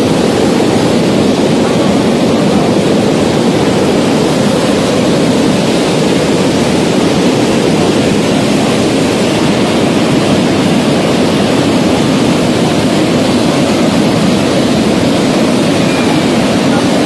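Swollen, muddy flood river rushing past: a loud, steady rush of churning water.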